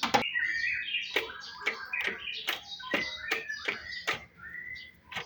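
Irregular sharp metallic clinks of hand tools working on a car engine during a drive-belt change, about two a second, with high chirping tones between them.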